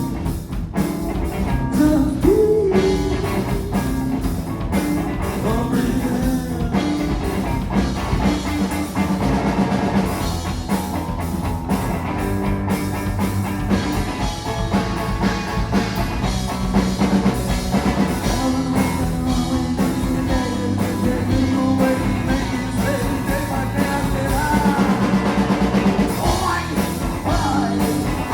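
Three-piece rock band playing live: guitar, bass guitar and drum kit, with a steady beat.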